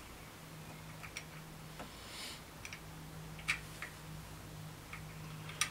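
Thread tap in a hand-turned tap wrench being worked in a bolt hole of a Jaguar V12 engine block, cleaning out the threads: scattered light clicks and ticks at irregular moments as the tool turns and shifts, over a faint steady hum.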